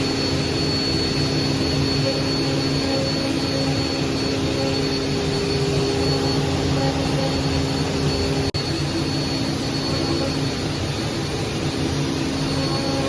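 CNC router spindle running steadily as it engraves text into a walnut box lid, a constant whine over the noise of the cut, with a momentary break about eight and a half seconds in.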